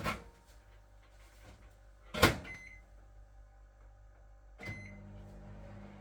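Microwave oven being shut and started: a click, then the door clunking shut about two seconds in with a short beep. Another beep comes just before the end, and the oven starts up with a steady hum.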